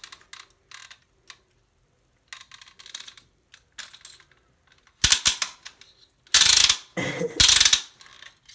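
Hand-cranked paper crimper being turned with a small plastic Lego piece in its rollers: a few light clicks at first, then from about halfway loud grinding, clattering bursts as the rollers strain against the hard piece.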